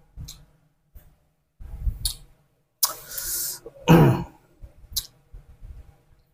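A man coughing once about four seconds in, just after a breathy exhale. Scattered light clicks and handling sounds run between them.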